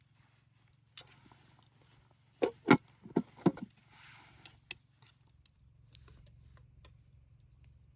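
A handful of sharp knocks and clatters of hard objects being handled, the loudest bunched together near the middle, with lighter clicks before and after.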